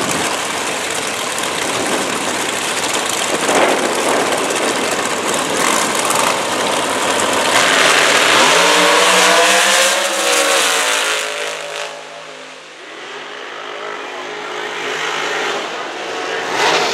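Two Top Dragster race cars' engines running loudly at the starting line, then launching about eight seconds in with a rising engine note that fades away as they run down the drag strip.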